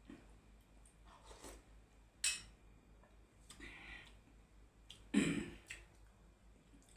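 Eating sounds from a mukbang: scattered mouth noises, smacks and chewing, with a louder throaty sound, like a gulp or throat clearing, about five seconds in.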